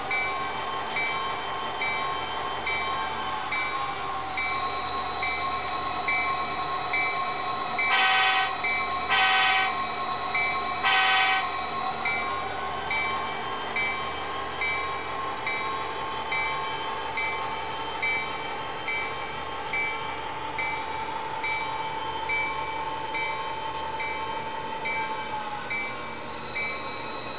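Onboard sound of Athearn RTR SD40N model diesel locomotives. The recorded diesel engine revs up near the start and again about twelve seconds in, then winds down near the end, over a bell dinging about twice a second. Three horn blasts come about eight, nine and eleven seconds in.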